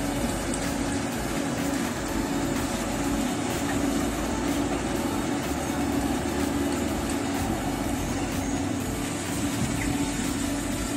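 Diesel engine of a long-reach excavator running steadily: a constant engine hum with a pulsing low note over a bed of noise.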